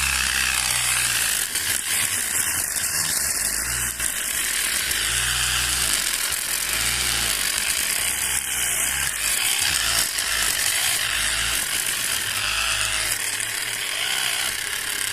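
Homemade grass trimmer built from a cheap angle grinder, its motor driving a metal strip blade directly with no gearbox, running steadily at full speed as it cuts grass.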